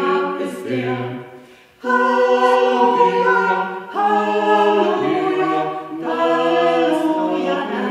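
Small mixed choir of four voices, three women and a man, singing a cappella in sustained chords. The singing fades out for a breath and comes back in strongly just before two seconds in, then moves to a new chord about four seconds in.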